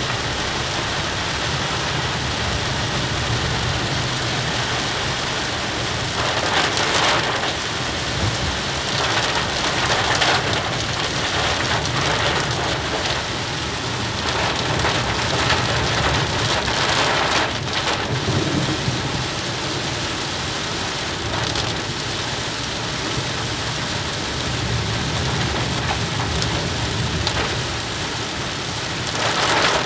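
Heavy rain pelting a small car's roof and windshield, heard from inside the cabin, over a steady low rumble of the car driving on a wet road. Several brief louder surges of rain or spray rise and fall, one just before the end.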